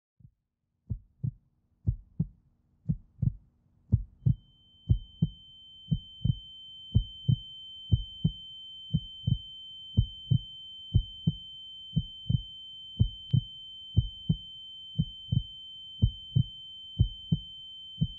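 Heartbeat sound effect: low double thumps about once a second. About four seconds in, a steady high-pitched ringing tone joins it, the ear-ringing effect film sound uses for a dazed or stunned character.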